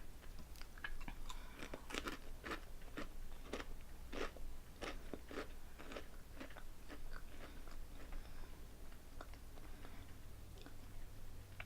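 Close-up crunching and chewing of crisp Korean potato snack chips: a quick run of sharp crunches that thins out over the second half as the mouthful is chewed down.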